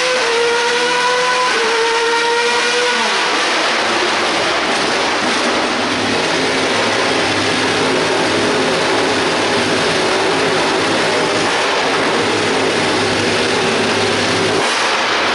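Alfa Romeo 155 DTM race car's V6 engine revving, held high for about three seconds with small steps in pitch. The revs then drop and it keeps running steadily at a lower, rougher pitch.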